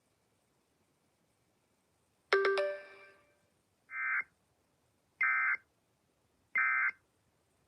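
A single chime-like tone strikes and rings out, fading over about a second. Then come three short, identical electronic data bursts about 1.3 seconds apart: the Emergency Alert System end-of-message (EOM) code that closes the warning.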